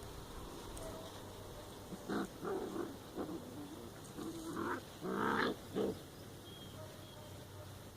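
Puppies giving a string of short vocal sounds, about half a dozen in the middle few seconds.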